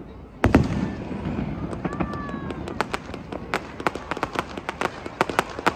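Fireworks display: one loud shell burst with a boom about half a second in, followed by rapid, thickening crackling pops.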